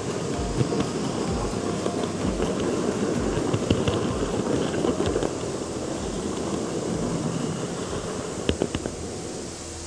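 N-gauge model train running along the track, heard from a camera riding on it: a steady rattle and hum of the motor and wheels on the rails, with a quick run of sharp clicks about eight and a half seconds in.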